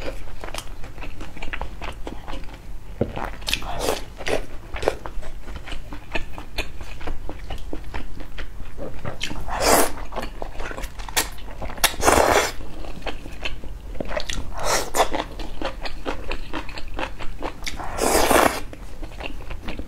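Close-miked mouth sounds of a person eating udon noodles: wet chewing clicks throughout, broken by about five loud noodle slurps of roughly half a second each, the longest near the end.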